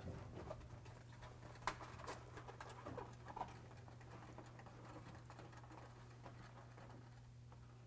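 Faint rustling, crinkling and light taps as a foil-faced sound-deadening mat and its paper backing are handled and pressed onto a car's bare steel roof panel, with most of the small sounds in the first half. A low steady hum runs underneath.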